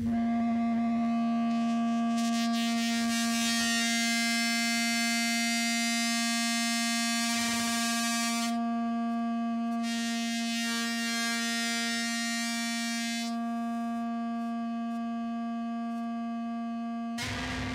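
Electronic drone music: one low tone with many bright overtones, held unbroken and slowly fading. A high hiss swells over it, cuts out suddenly, returns and cuts out again. A low rumble comes in just before the end.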